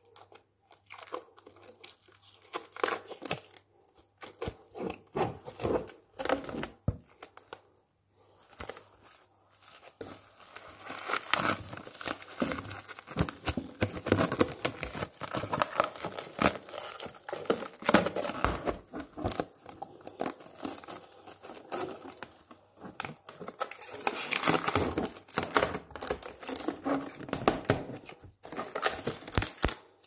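Clear plastic wrap crinkling and crackling as it is wound tightly around a bare heel, in irregular handfuls. There are brief pauses in the first ten seconds, then steadier, busier crinkling.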